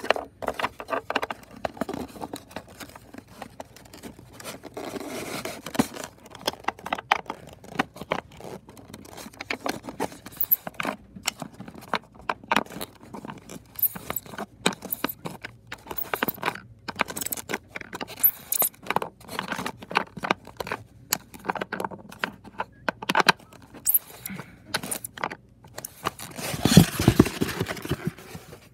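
Styrofoam packaging tray and its plastic fittings being scraped, rubbed and clicked by hands working a 1:24 scale diecast car loose. There are many short clicks and scrapes throughout, and a longer, louder rub near the end.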